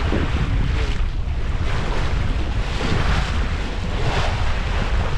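Wind buffeting the microphone over water rushing and splashing along the hull of a sailing yacht beating upwind under sail. The hiss of the bow wave swells and eases in washes every second or so.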